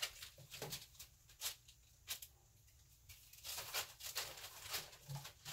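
Faint, scattered taps and scrapes of a wooden craft stick against a paint cup as paint is stirred and scooped, a few light clicks at a time with short pauses.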